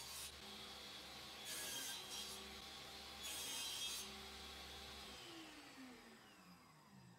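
Table saw running with a plywood crosscut sled on it, with a few short rasping bursts of wood rubbing on wood as the sled and cut pieces are moved. About five seconds in the saw is switched off and its motor winds down, the hum falling steadily in pitch and fading.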